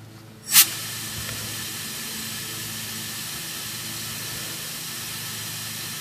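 Compressed air turned on through the flow regulator into the homemade evap smoke machine: a sudden loud burst about half a second in, then a steady hiss. The flow is still too low to register on the low-pressure gauge but can be heard.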